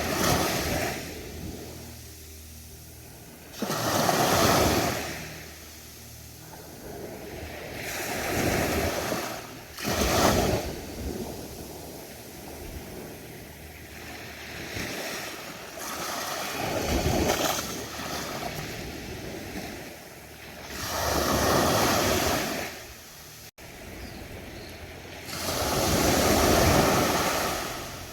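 Ocean surf breaking on a beach, rising and falling in repeated surges about every four to five seconds.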